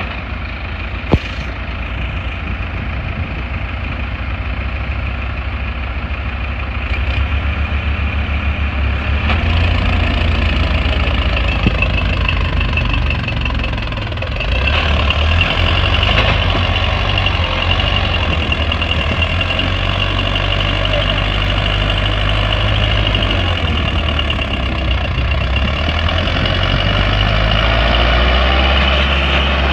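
Two diesel tractors, a Farmtrac 6055 and a Digitrac, running hard under full load as they pull against each other in a chained tug-of-war. The engine noise grows louder about seven seconds in and again around fourteen seconds in, with one sharp click about a second in.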